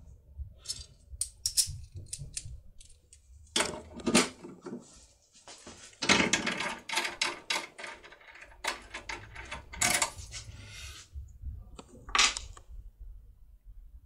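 Irregular metallic clicks and clinks of keys and a foil impression tool being handled and worked into a euro lock cylinder clamped in a bench vise, with a dense run of clicking about six seconds in.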